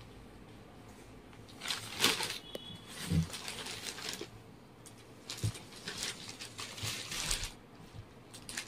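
Saree fabric rustling and flapping as it is handled and unfolded, in several short bursts, with a few soft thumps.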